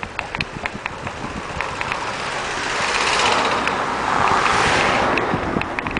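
A car passing close by: its engine and tyre noise swells over about two seconds and fades again near the end. Short rattling ticks from the moving bicycle are heard around it.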